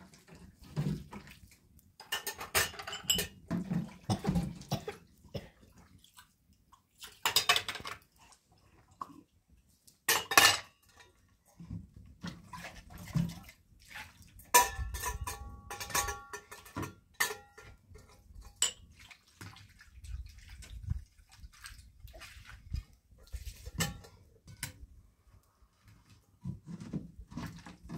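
Metal dishes clinking and knocking as they are washed by hand, with water poured from a metal kettle splashing into a metal bowl. Around the middle the bowl rings briefly.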